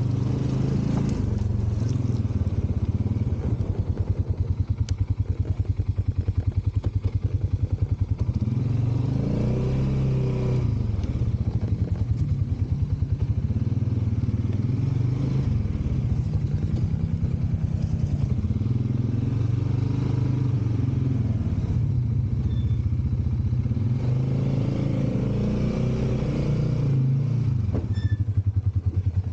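Off-road vehicle engine running under way, its pitch rising and falling twice as the throttle changes, with a few sharp knocks near the end.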